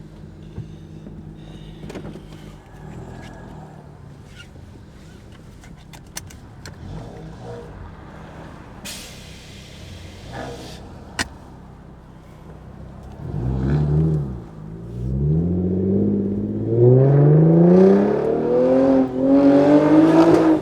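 Lexus IS250's 2.5-litre V6 breathing through a newly fitted Invidia cat-back exhaust. It idles low and steady at first, then from about two-thirds of the way through it is revved repeatedly, the pitch climbing and falling with each blip and the exhaust note getting loud.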